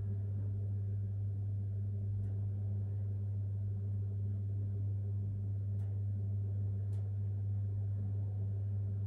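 Steady low electrical hum, unchanging, with a couple of faint clicks near the end.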